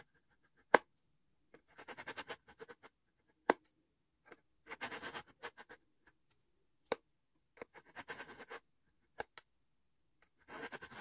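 Kitchen knife blade pulled through the metal slot of a three-stage pull-through knife sharpener: about four scraping strokes of roughly a second each, the coarse first stage of sharpening. A sharp click, the loudest sound, follows each stroke.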